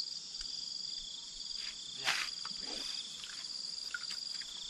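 A chorus of insects buzzing steadily at a high pitch, partly in quick pulses, with one short sharp noise about two seconds in.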